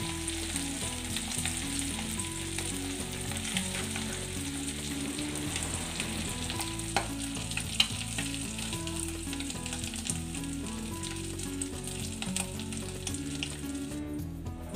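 Small prawns (chingri) sizzling in hot oil in a kadai, a steady sizzle with crackles and a few sharp pops, as a spatula lifts the fried prawns out of the pan. The sizzling stops near the end.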